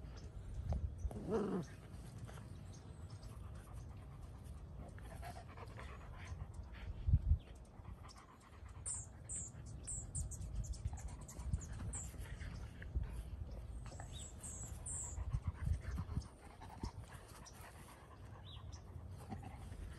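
A Great Pyrenees and a cocker spaniel puppy playing rough, with dog sounds throughout and a short pitched cry about a second in. A thump about seven seconds in is the loudest moment.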